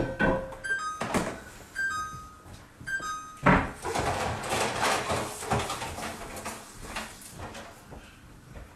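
Three short two-note electronic beeps, each a higher tone then a lower one, about a second apart. Then a knock and a few seconds of clattering and rustling as things are handled on the kitchen bench, slowly fading.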